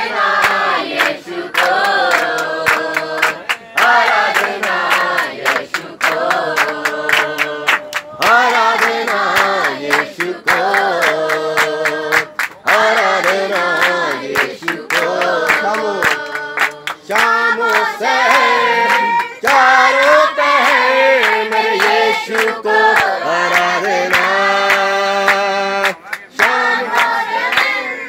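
A group of mostly female voices singing a song together in unison, with hand clapping in time throughout.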